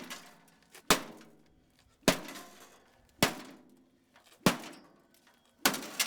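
Golf club striking the metal body of a Presto XB2611T microwave: five hard blows about a second apart, each ringing briefly. Near the end a blow sets off a longer clatter of breaking parts.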